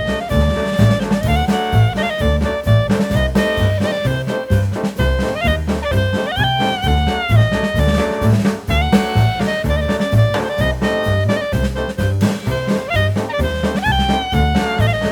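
Background music: a jazzy tune whose melody slides up and down in pitch over a steady, even beat.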